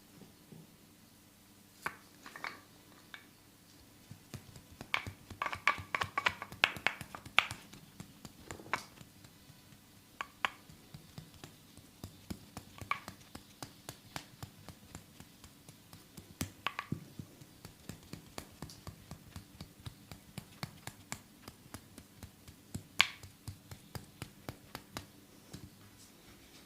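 Hands working on oiled skin during a massage: a long run of sharp clicks, snaps and pats, thickest about five to seven seconds in, with one louder snap near the end.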